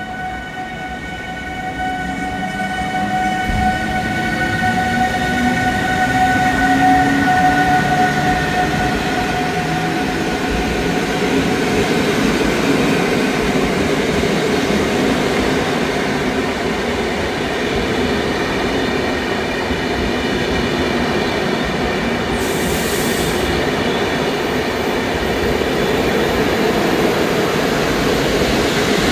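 Newag Griffin EU160 electric locomotive pulling away under power: a steady electrical whine of several tones, with a lower tone rising in pitch as it gathers speed. The Intercity passenger coaches then roll past with steady wheel-on-rail noise, and a brief high hiss comes near the end.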